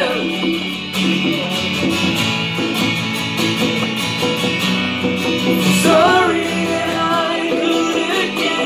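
Live acoustic guitar strummed along with hand-played conga drums, and a man singing, with a sung phrase about six seconds in.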